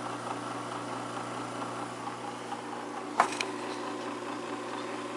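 Steady low electrical hum with several even tones, and a single short click about three seconds in.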